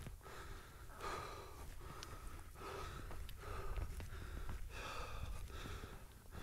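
A hiker breathing hard while climbing a steep fell path, one loud breath roughly every second.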